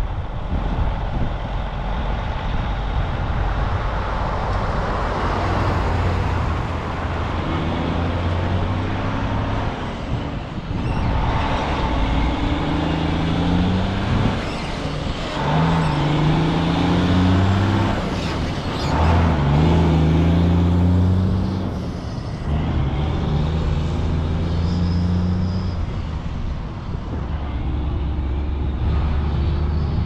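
Large diesel harvest machinery, combine harvester and tractor engines, running under load in a corn field, with a steady rush of machine noise. The engine note shifts up and down several times as speed and load change.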